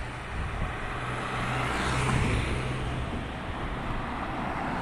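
A car passing on the street, its engine hum and tyre noise rising to a peak about two seconds in and then fading, over steady traffic noise.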